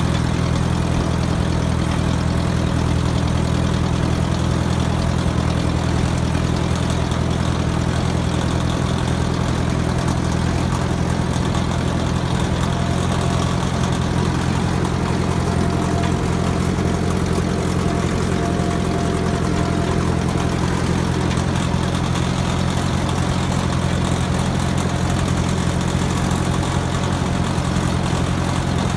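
Small tractor's engine running at a steady speed while driving, a constant low drone that holds the same pitch throughout.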